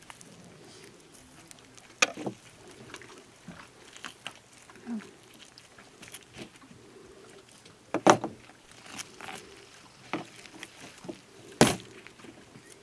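Knife cutting and scraping through a fish on a wooden table, with scattered small clicks and three loud, sharp knocks as the knife and fish are handled against the board, the loudest near the end.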